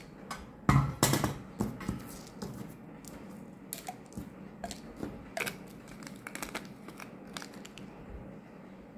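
Gelatin capsules and a stainless steel pill tray clattering as the capsules are poured back into a plastic pill bottle, with a few loud knocks about a second in, then scattered light clicks as more capsules go in, thinning out near the end.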